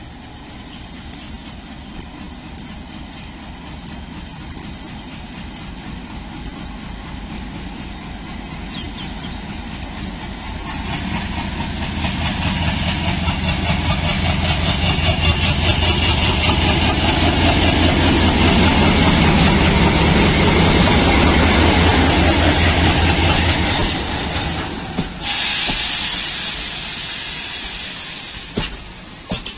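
A train approaching and running past, its low rumble and rapid regular wheel beat swelling to a peak about two-thirds of the way through, then fading, with a short burst of loud hiss near the end.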